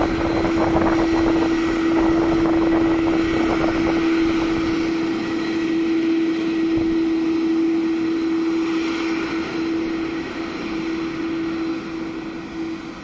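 Airbus A330-300 jet engines at takeoff thrust: a loud, steady jet noise carrying one strong tone, fading over the last few seconds as the aircraft moves away.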